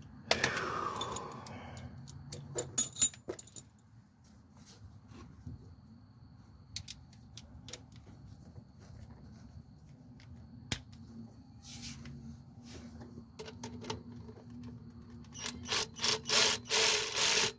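Metal hand tools and bolts clinking and scraping against the engine while an alternator is being refitted. Scattered sharp clicks early on give way to a fast run of loud clicking near the end, as a bolt is worked tight.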